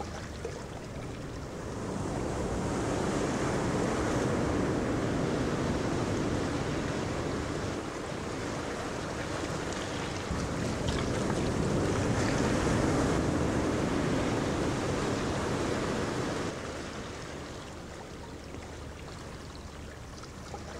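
Rushing sound of ocean surf, swelling in two long waves and easing off after about sixteen seconds.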